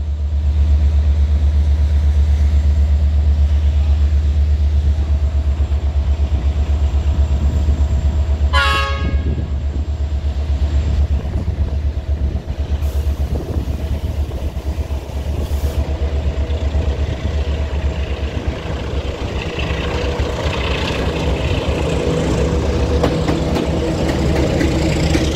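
Diesel freight locomotive approaching along the track, over a steady low rumble, with one short horn blast about nine seconds in. Its engine and the train's running noise grow louder in the last few seconds as it comes alongside.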